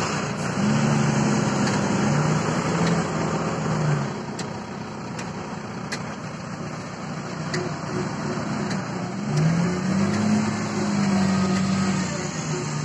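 JCB 3DX backhoe loader's diesel engine running steadily, louder for the first few seconds and again near the end, with a few light clicks in between.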